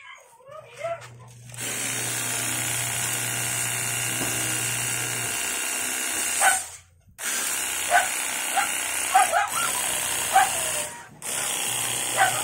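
INGCO CPWLI20082P cordless lithium-ion pressure washer running: the pump motor hums, then the jet sprays with a steady loud hiss. The spray cuts off briefly twice, about halfway and near the end. Several short animal calls sound over it in the second half.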